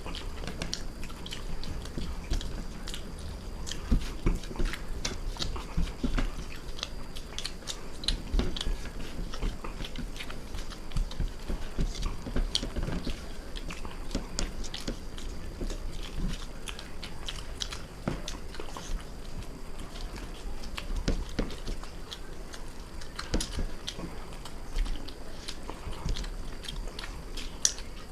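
Close-miked eating: people chewing and biting mouthfuls of chicken biryani, with irregular wet clicks and smacks from their mouths and soft low knocks.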